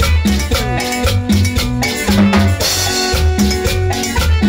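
Live band playing dance music: drum kit and timbales keep a steady beat under a keyboard's held notes and bass line. A cymbal crash comes about two and a half seconds in.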